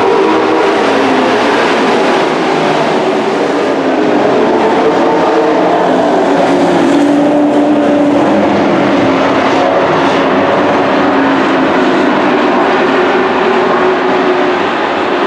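Several dirt-track race trucks' engines running at racing speed around an oval. Their overlapping pitches drift up and down as they go around.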